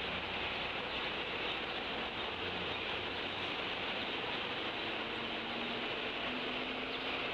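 Steady hiss of an outdoor eagle nest camera's microphone, even throughout with no distinct calls standing out.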